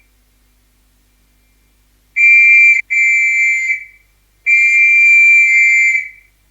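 Police whistle blown in three high, steady blasts: two in quick succession about two seconds in, then a longer one about a second later that tails off.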